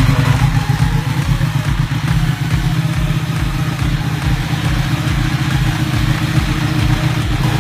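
Ducati 1199 Panigale's 1198 cc Superquadro L-twin engine catches at the very start and settles into a steady idle.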